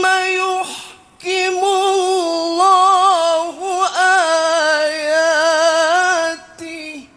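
A male Quran reciter (qari) chanting in tilawah style into a microphone. He holds a long high note with vibrato, breaks off briefly about a second in, then sings a long ornamented melismatic phrase that trails off near the end.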